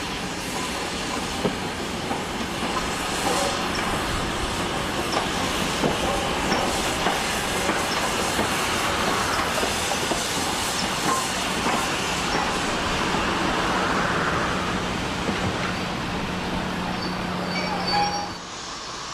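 Steam-hauled train rolling slowly past, its wheels clicking over the rail joints under a steady rumble, with a few brief high squeals near the end before the noise drops away.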